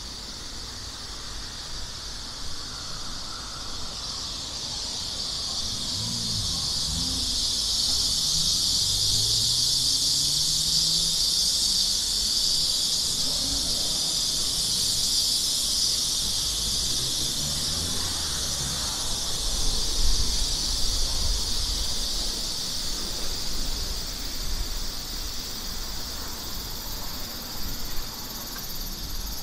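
Insect chorus outdoors: a steady high buzzing that swells a few seconds in, holds loud through the middle and eases off toward the end.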